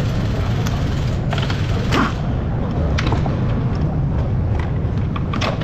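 Steady low hum of workshop background noise, with a few light clicks and knocks of parts being handled around a car's front strut mount, the sharpest about two seconds in and just before the end.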